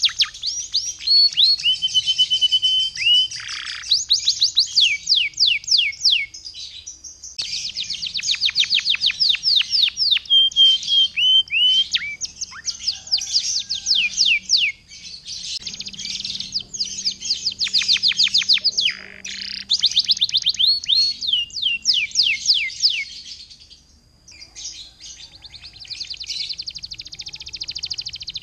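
Domestic canary in full song: a long, continuous warble of rapid trills made of fast repeated sweeping notes, broken now and then by short held whistles. The song eases briefly about 24 seconds in, then goes on as a fast buzzy trill.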